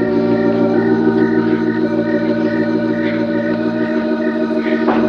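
Dark horror-soundtrack music: sustained organ chords held steadily, with a soft repeating high note above them. The lowest notes drop out about four seconds in.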